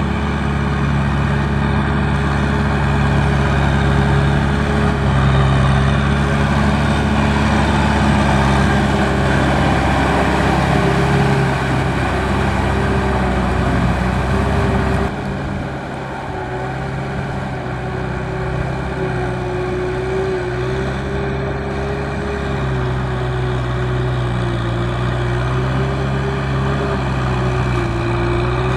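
Kubota M6040 tractor's diesel engine running steadily, with an even, slightly wavering hum; the sound changes abruptly about halfway through and turns a little quieter.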